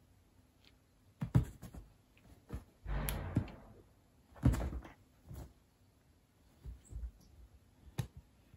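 A cat playing with a wand fishing toy on a bed: a string of soft thumps and knocks with a brief rustle of bedding, the loudest thumps about a second and a half and four and a half seconds in.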